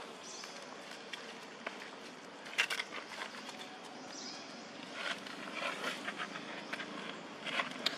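Outdoor ambience: a steady hiss with short clusters of crackling and rustling about two and a half seconds in, from about five to six seconds in, and again near the end.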